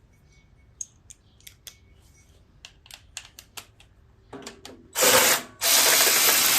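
Light clicks and clinks of a socket and extension being fitted, then about five seconds in a power drill spins a shallow 10 mm socket on an extension: a short burst, a brief stop, then running steadily, backing out a shroud bolt.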